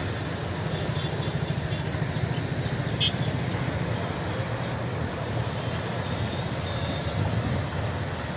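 Fast-flowing floodwater of a swollen river rushing past a concrete bridge wall: a steady, low, continuous rumble of moving water.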